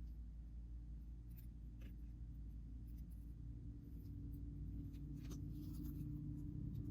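Faint clicks and light scratching of small repair tools on an iPhone XR's internal brackets and screws, a few separate ticks over a steady low hum.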